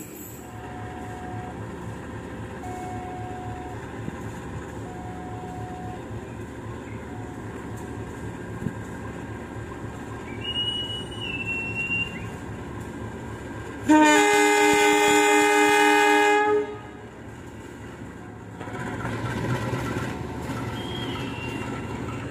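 Diesel locomotive of a passenger train running at a station as it departs. A brief high whistle sounds about ten seconds in. A few seconds later comes the locomotive's loud multi-tone horn, held for nearly three seconds, and the engine builds again as the train pulls away.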